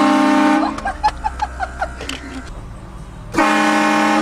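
Car-mounted train horns, air horns fed by an onboard compressor, blasting twice: a loud steady chord of about a second at the start, and a second identical blast about three and a half seconds in that runs to the end.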